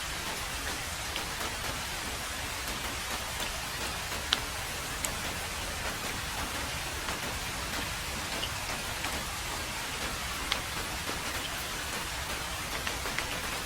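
Heavy rain falling steadily on a road, a dense even hiss with a few louder single drop hits standing out.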